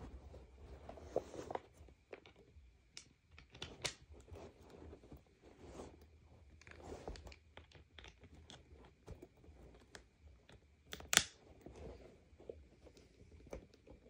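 Hands handling the parts of a Sanitaire upright vacuum during assembly: scattered rustling and small plastic clicks and taps, with one sharp click about eleven seconds in.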